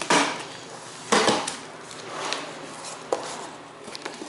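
Cardboard packaging being handled and pulled apart: two loud scraping knocks about a second apart, then lighter rustling and scraping.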